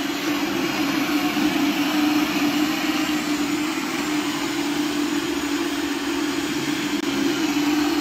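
Electric blender motor running steadily at full speed, a constant whirring hum as it purées fruit with water into a smoothie.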